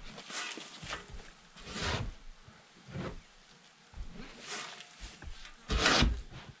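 Grain scoop shovelling old shavings and manure off a chicken-coop floor: about half a dozen short scrapes roughly a second apart, the loudest near the end.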